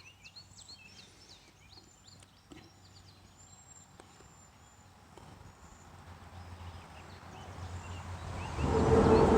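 Small birds chirping faintly, then a vehicle approaching, its noise growing louder over a few seconds until it crosses the bridge overhead near the end with a loud, steady rush.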